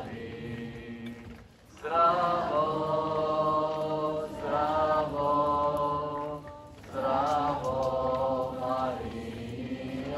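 A group of voices singing a slow hymn or chant together, long held notes in phrases with short breaks for breath about one and a half seconds in and again past six seconds.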